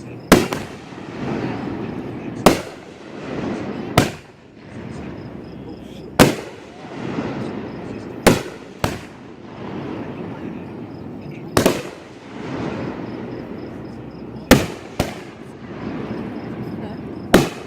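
Aerial fireworks shells bursting: about ten sharp bangs, one every second or two, two of them coming in quick pairs, each followed by a rolling rumble.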